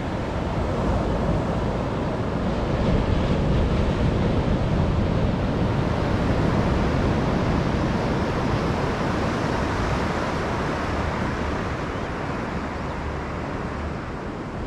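Ocean waves breaking: a steady rush of surf that swells a couple of seconds in and slowly eases off toward the end.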